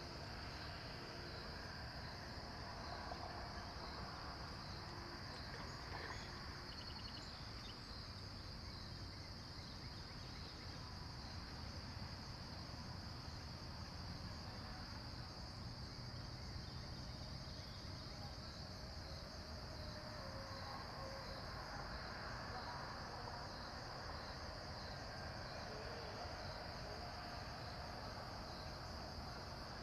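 Insect chorus: a steady, high-pitched trill that pulses evenly throughout, over a low background rumble.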